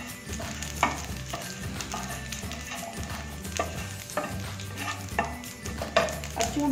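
Wooden spatula stirring carom seeds and asafoetida in hot mustard oil in a nonstick frying pan, with irregular knocks and scrapes of the spatula against the pan and the spices sizzling in the oil.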